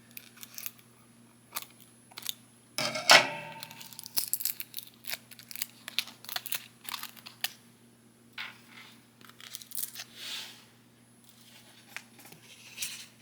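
Small plastic figure parts being pulled and torn out of a cardboard packaging card: irregular tearing and crinkling with small clicks and rustles, loudest about three seconds in.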